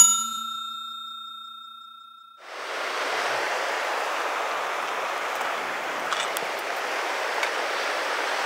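A bell-like chime rings once and fades over about two seconds. About two and a half seconds in, the steady rush of a fast, rocky mountain river, the Gardner River's pocketwater, comes in and holds.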